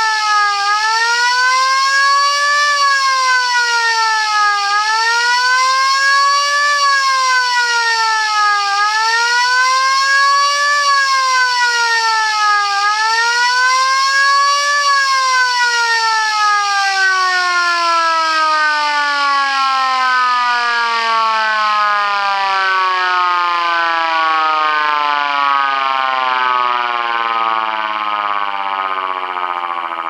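Helin VS1 electric motor siren wailing, its pitch rising and falling about every four seconds. About fifteen seconds in it is left to run down, and its pitch falls steadily while the sound fades toward the end.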